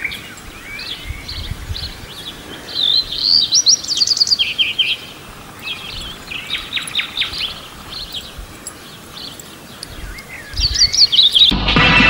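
Birds chirping and calling: a string of short chirps and trills, busiest a few seconds in and again near the end. Just before the end, music with a throbbing beat cuts in abruptly.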